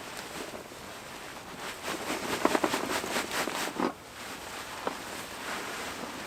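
A run of rustling and crackling, loudest from about two to four seconds in, with a few faint ticks around it.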